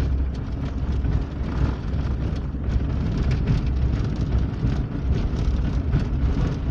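Vehicle driving on a loose gravel road, heard from inside the cabin: a steady low rumble of engine and tyres, with many scattered short clicks of stones under the tyres.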